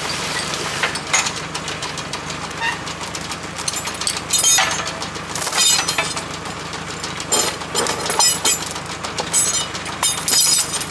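A tractor engine idling steadily under a series of metallic clinks and wooden knocks as steel choker chains are worked loose from a bundle of hardwood logs at a Farmi skidding winch.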